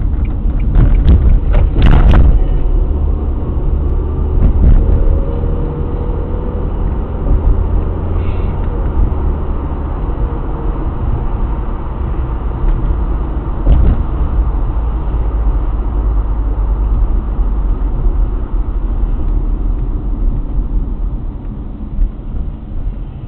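Inside a moving car, heard through a dashcam's microphone: steady low road and engine rumble at around 35 mph. A few sharp knocks come about one to two seconds in.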